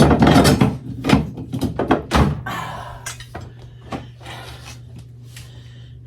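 A quick run of knocks and thunks as things are handled and set down during fridge cleaning, then quieter rubbing and rustling from about two and a half seconds in, over a steady low hum.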